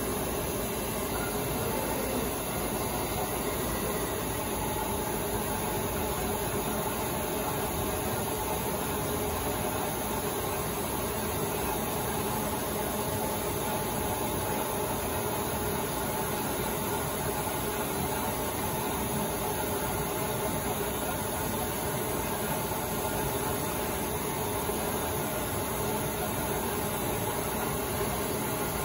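Flatbed vinyl stencil cutter running, dominated by the steady rushing noise of its 1/2 HP vacuum hold-down pump, even and unbroken throughout.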